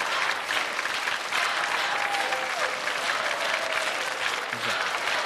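Studio audience applauding steadily as prizes are handed out.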